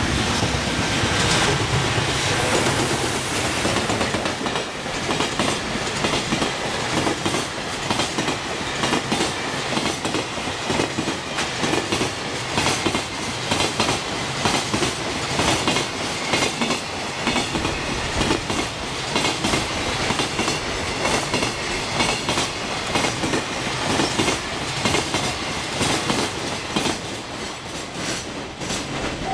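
Freight train wagons running over rail joints: a dense, rapid clickety-clack of wheels striking the joints, loud and continuous, easing slightly near the end.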